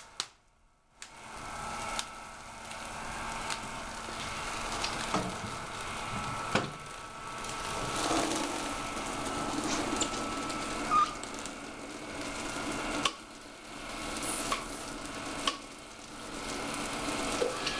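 Cryogenic liquid sizzling and boiling off in an open dewar as a cold sample holder is dipped in and lifted out, with scattered metallic clicks and knocks from handling the apparatus.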